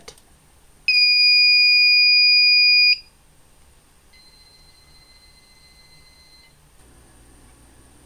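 Fire-Lite MS-9600UDLS fire alarm control panel's piezo sounder giving one steady high beep of about two seconds as the panel resets and restarts. A second, much fainter and slightly lower steady beep follows for about two seconds.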